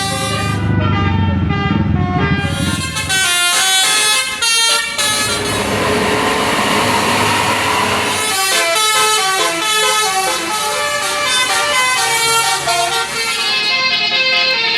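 A tour bus's 'telolet basuri' musical air horn playing a quick melody of stepped notes, over a low engine rumble in the first few seconds. Around the middle, a rushing noise briefly covers the tune before the notes return.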